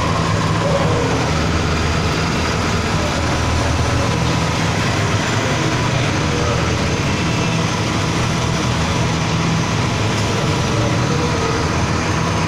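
Small petrol engine running steadily, driving a double-paddle flour dough mixer through a gearbox and chain drive.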